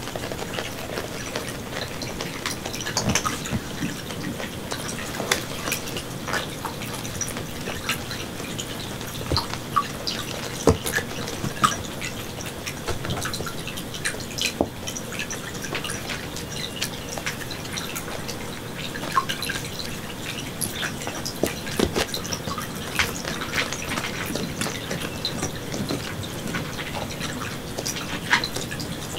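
Water dripping and trickling steadily, with many small irregular plinks and taps.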